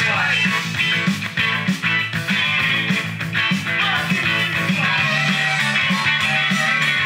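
Rock band playing, electric guitar to the fore over bass and drums, with no singing.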